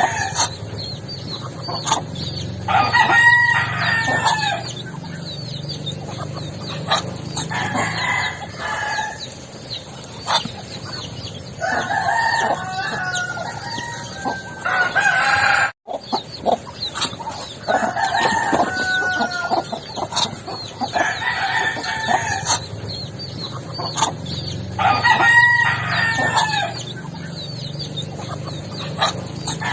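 Backyard chickens clucking, with a rooster crowing about four times; the sound cuts out for an instant just past the halfway point.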